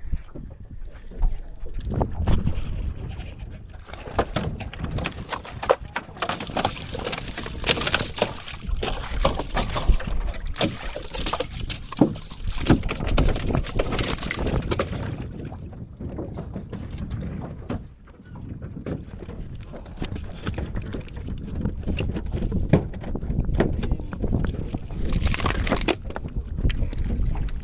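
Noise of a small boat on the water with wind on the microphone and many scattered knocks; it grows louder about four seconds in, eases off about halfway through, and swells again near the end.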